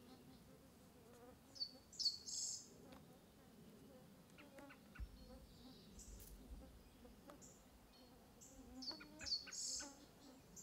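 Faint outdoor ambience of small birds chirping in two short clusters of quick, high, falling notes, one about two seconds in and one near the end, over a faint buzz of insects.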